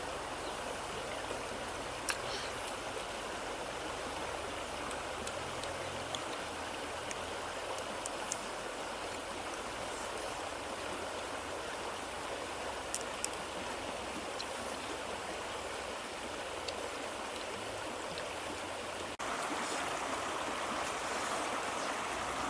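Steady rush of flowing stream water with a few light clicks now and then. The water sound steps up abruptly to a little louder about nineteen seconds in.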